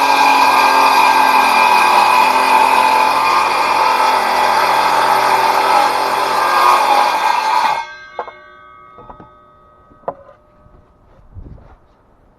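Ridgid circular saw running and cutting through wood board, a steady loud whine that stops suddenly about eight seconds in. A few light knocks follow.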